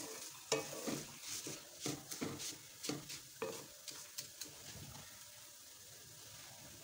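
Wooden spatula stirring and scraping vermicelli in an aluminium wok, a quick run of scrapes and taps for about the first four seconds, then only the faint steady sizzle of the vermicelli toasting in ghee.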